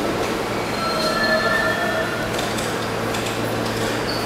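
R32 subway train pulling out of the station, its wheels on the rails with a brief high squeal about a second in, over a steady low hum.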